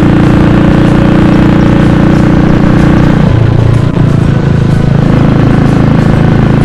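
Royal Enfield Thunderbird 350X's single-cylinder engine running loud and steady while riding. About three seconds in the revs fall, with a brief dip in loudness just after, and the engine then carries on steadily at a lower pitch.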